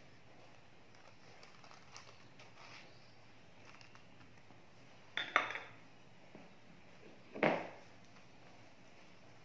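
Kitchen utensils, a knife and a plastic spatula, knocking on a wooden cutting board: two short clatters about two seconds apart, with a few faint ticks before them.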